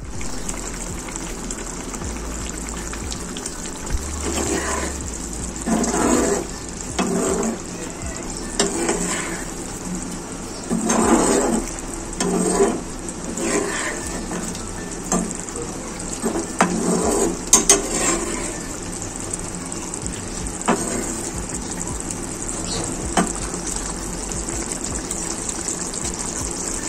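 Potato curry sauce bubbling and sizzling in a frying pan, with a metal spoon stirring through it in irregular bursts between about four and eighteen seconds in.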